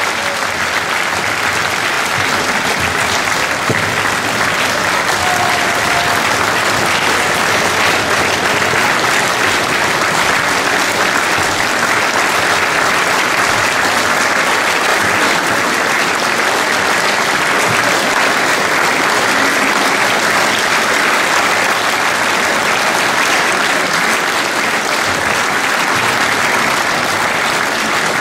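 A large audience applauding steadily and evenly, a dense wash of clapping.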